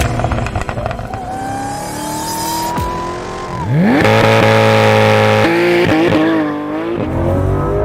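High-performance car engine and exhaust revving: the pitch climbs slowly, then sweeps sharply up about three and a half seconds in, holds high and loud for about a second and a half, and falls back.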